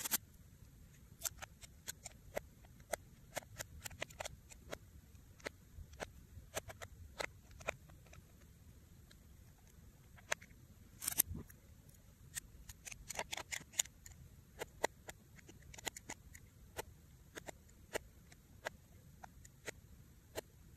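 Small hand tool and fingers clicking and scraping against the plastic housing of a BlackBerry Q10 phone during disassembly: scattered, irregular light clicks, with a louder cluster about 11 seconds in.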